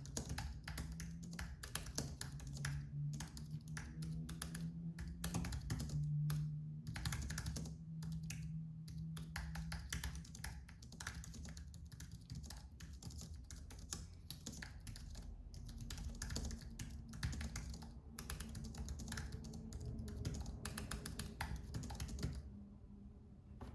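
Apple Magic Keyboard with Numeric Keypad being typed on in a steady stream of light, low-travel key clicks. The typing stops about a second before the end.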